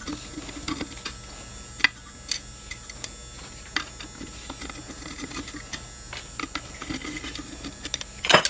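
Screwdriver working small screws out of a headlight housing: faint, scattered clicks and scrapes of metal on plastic, with a louder clack near the end.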